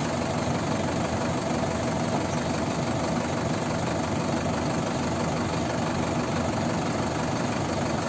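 Diesel engines of a Mahindra tractor and a JCB backhoe loader idling steadily, with no revving.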